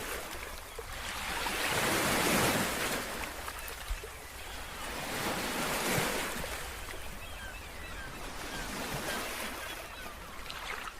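Wind and ocean surf: a steady rushing that swells and eases every few seconds.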